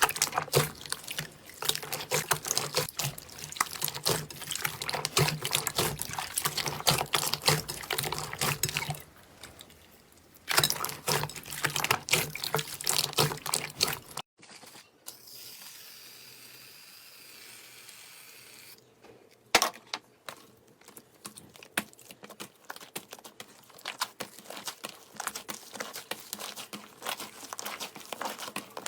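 Slime being squeezed and worked by hand, making rapid wet, sticky clicks and pops. About halfway through it gives way to a few seconds of quiet soft hiss, then the squishing starts again.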